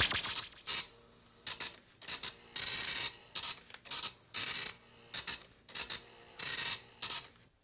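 An irregular series of short rasping scrapes, about a dozen strokes, each a brief hiss of friction with quiet gaps between.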